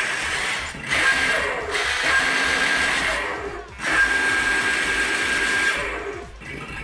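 Electric drive motors of a 1:10-scale R/C Batmobile whining as it is driven, in runs that drop out briefly about three times.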